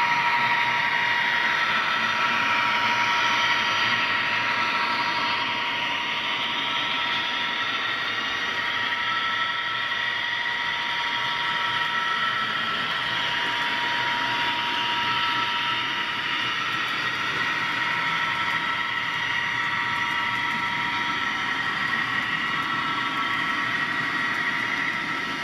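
HO scale model freight train of double-stack container cars rolling past on the track: a steady whirring of small metal wheels on rail with a thin high whine, easing slightly about six seconds in.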